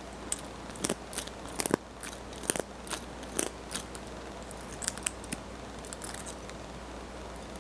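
Key being turned in a Guard Security padlock that is already open, giving a run of irregular sharp metallic clicks, thick for the first five seconds or so and only a few near the end. The lock's mechanism is noticeably noisy.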